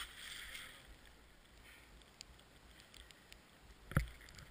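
Snowboard sliding through deep powder: a hiss of sprayed snow that fades within the first second to a faint steady swish. A single sharp knock about four seconds in.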